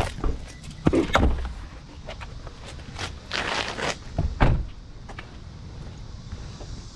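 Several thuds and knocks, with a short rushing hiss about three seconds in.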